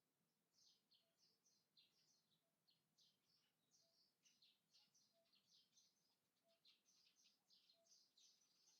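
Very faint birdsong: small birds giving a dense run of short, high chirps, one after another.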